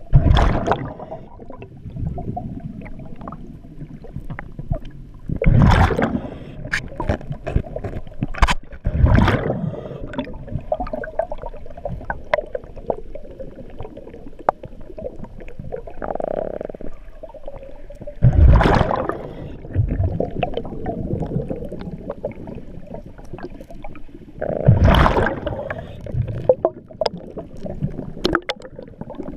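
Scuba diver breathing through a regulator underwater: bursts of exhaled bubbles every few seconds, five in all, with a shorter, steadier inhale sound a little past the middle, over a constant crackle of small clicks.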